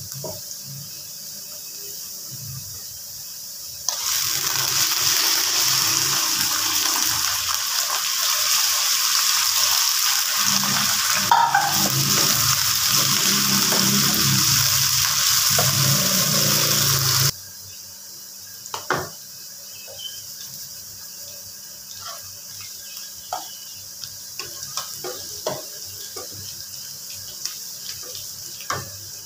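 Raw chicken pieces frying in hot oil with sliced onions in a pan: a loud, steady sizzle that starts suddenly about four seconds in and cuts off abruptly some thirteen seconds later. Before and after it, a quieter frying hiss with scattered taps and scrapes of stirring against the pan.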